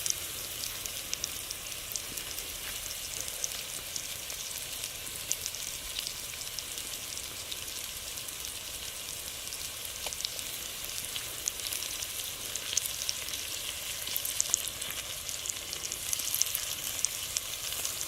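Food frying in hot oil in a cooking pan: a steady sizzling hiss with many small crackles and pops.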